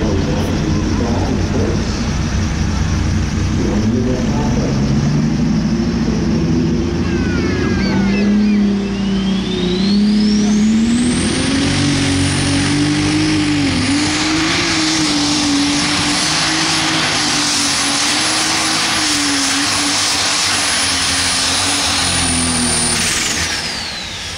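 Case IH Light Super Stock pulling tractor's turbocharged diesel engine under full load as it pulls the sled. The engine note climbs from about four seconds in, and a high turbo whistle rises to a steady scream, holds, then falls away near the end as the throttle comes off.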